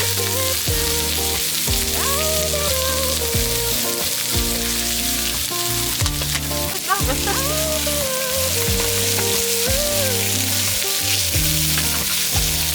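Meat sizzling steadily as it fries in a hot pan, over background music with a melody.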